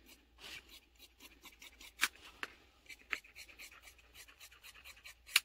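Large fabric shears cutting through stretch knit fabric: a run of short snips and blade clicks at an uneven pace, with sharper clicks about two seconds in and near the end.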